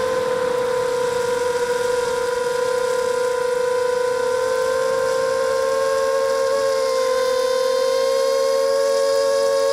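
Brushless motors and propellers of a 260-size FPV quadcopter whining steadily, picked up by the onboard camera. The pitch edges up slightly about two-thirds of the way through as the quad climbs.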